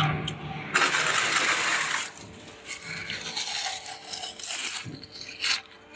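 Fingers scraping and crumbling thick freezer frost, a dense crackling burst about a second in, then irregular crunches of the frost being bitten and chewed.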